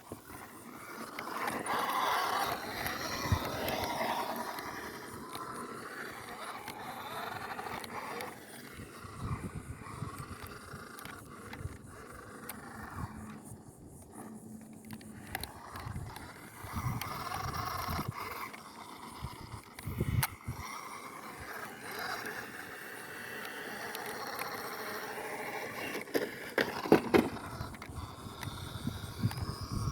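Toy-grade RC car's small electric motor whining up and down in pitch as it drives, with scraping and knocking as it goes over rough ground.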